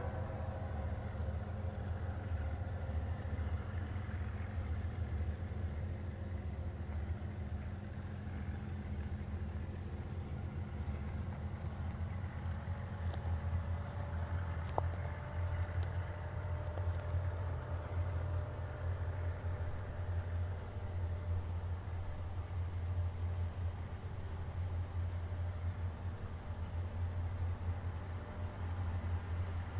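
Insects chirping in quick, regularly repeated pulses, with a steady high insect whine, over a low steady rumble from the approaching diesel locomotives: a CP ES44AC leading five units working hard to get a heavy train rolling. A single faint click about halfway through.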